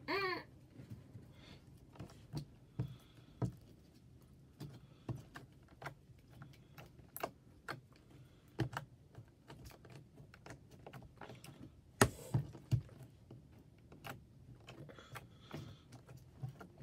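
Slime being kneaded and squished by hand, giving irregular small clicks and pops, with a louder pop about twelve seconds in.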